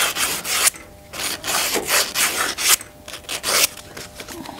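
Sandpaper rolled on a small bar rubbing around the inside of a Lotus Elise wishbone's metal bush eye in several short strokes, smoothing the eye before a new bush goes in. The strokes get weaker near the end.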